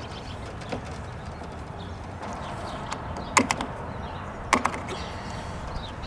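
Hand screwdriver work on the plastic and metal mounting plate of an RV keyless door lock: faint scraping and ticking, with two sharp clicks, a quick double one about three and a half seconds in and a single one about a second later.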